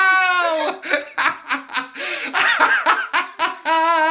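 People laughing in quick pulsing bursts, with a high-pitched laugh that falls in pitch in the first second and another held high note near the end.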